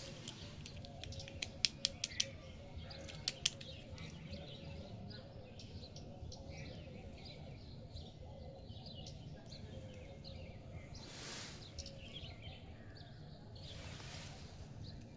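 A few sharp clicks in the first few seconds, with faint birds chirping in the background throughout and two brief rustling hisses later on.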